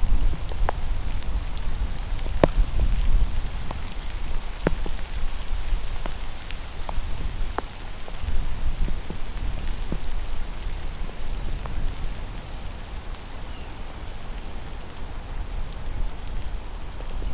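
Wind rumbling on the microphone over a steady hiss of flowing river water, with a scattering of small sharp clicks at irregular intervals.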